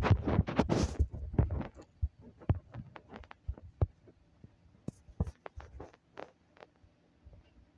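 Irregular soft knocks and clicks, with a denser rustling burst in the first second, thinning out toward the end.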